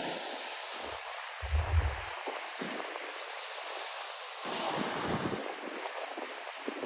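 Black Sea surf washing onto the beach as a steady hiss, with a wave surging up a little louder about halfway through. A brief low buffet of wind on the microphone at about a second and a half is the loudest moment.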